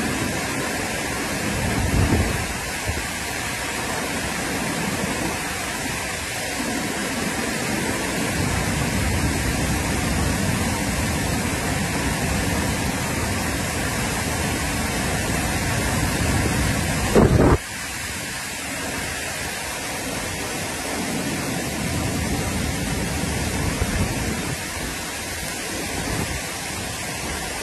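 Heavy thunderstorm rain and strong wind: a steady loud rushing, with low rumbling gusts buffeting the microphone. About two-thirds of the way in there is a single sudden loud thump.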